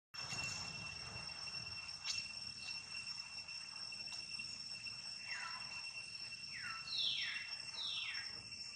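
Steady, high-pitched drone of crickets. Four short squeals fall in pitch about two-thirds of the way through, the loudest about seven seconds in.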